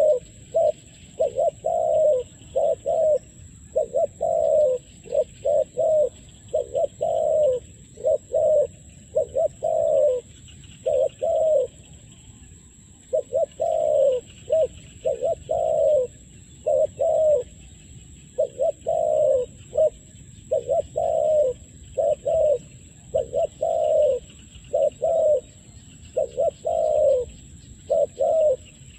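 Spotted dove cooing: groups of two to four short, low coos repeated one after another with brief pauses between groups.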